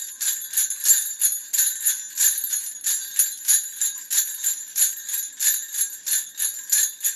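Jingle bells shaken in a steady rhythm, about four shakes a second, bright and high with no low end.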